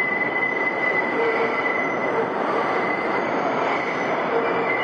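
New York City Subway 5 train rolling into the station, its steel wheels grinding against the rails in a steady high screech over the loud running rumble of the cars. The squeal comes from the sharp right turn just before the platform, so tight that it makes the wheels grind against the rails.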